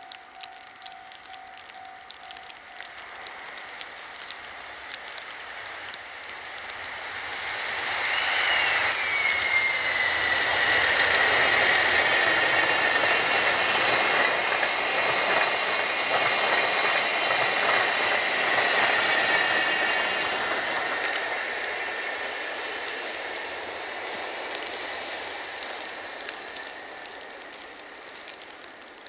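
A train of 12-series passenger coaches worked by EF65 501 and EF60 19 electric locomotives passes by. Its running noise builds up, stays loud for about twelve seconds with a high whine that dips in pitch near the start and then holds steady, and then fades away.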